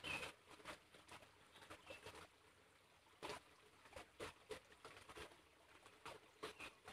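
Near silence: faint outdoor ambience with scattered, irregular soft clicks and ticks.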